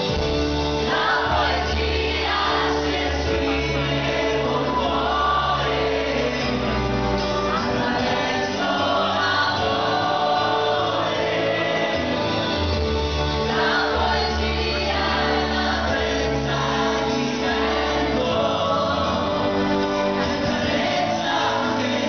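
Live pop band performing a song: male and female voices singing over drums, bass guitar and held keyboard chords.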